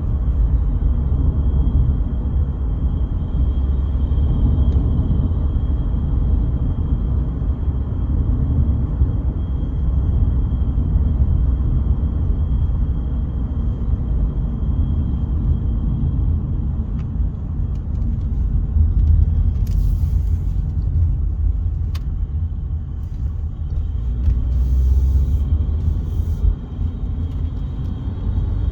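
Cabin noise in a 2014 Mercedes-Benz W205 C-Class on the move: a steady low rumble from road and engine with a thin, steady high-pitched ringing tone over it. The owner traced the ringing to the high-pressure fuel pump's sound coming into the cabin through a faulty steering-shaft boot in the driver's footwell.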